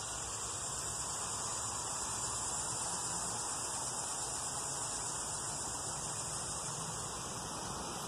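Steady hiss of shallow creek water running over rocks.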